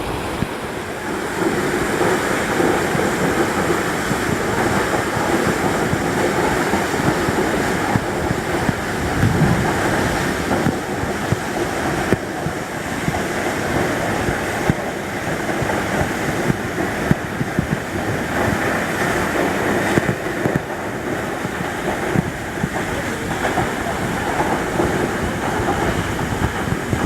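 Pinaisara Falls, a waterfall, rushing in a steady roar of falling water.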